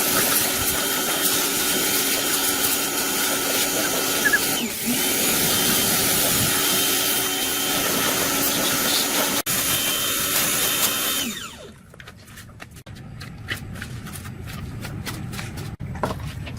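Electric power tool running steadily, then switched off about eleven seconds in and spinning down, followed by quieter scattered clicks of handling.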